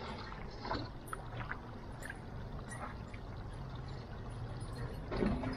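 Hot tub water lapping and trickling close by, over a steady low rumble.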